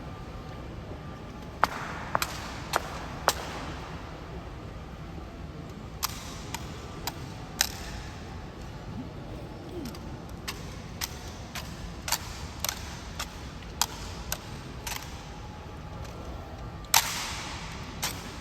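Honor guard rifle drill: a string of sharp, irregularly spaced clacks and knocks as the rifles are handled and struck. The loudest crack comes near the end, with a short echo.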